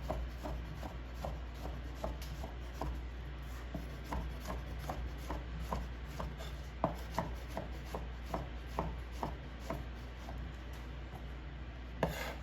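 Kitchen knife slicing mushrooms on a cutting board, the blade knocking lightly on the board about two to three times a second.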